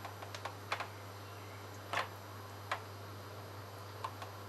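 Scattered light clicks and taps, the loudest about two seconds in, as egg-coated chicken drumsticks are turned over by hand in a stainless steel tray of beaten egg.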